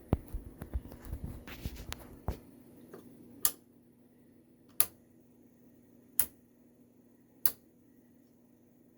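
A burst of knocks and handling noise for about the first two seconds, then sharp single clicks repeating about every 1.3 seconds over a faint steady hum.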